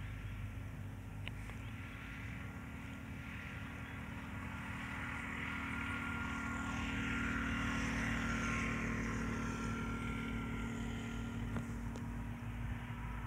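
Engine noise of a passing vehicle, swelling to its loudest about eight seconds in and then easing off, with a whine that falls in pitch after the peak over a steady low hum.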